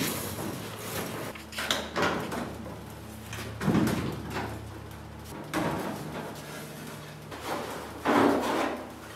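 Hollow clunks and rumbles from a rusty VW Beetle body shell on a wheeled steel stand as it is pushed and handled on a concrete floor, about six knocks over a low steady hum.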